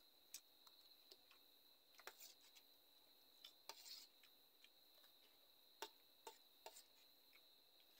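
Near silence with a faint steady high whine and a dozen scattered soft clicks and ticks, the sounds of instant noodles being eaten by hand from a steel plate.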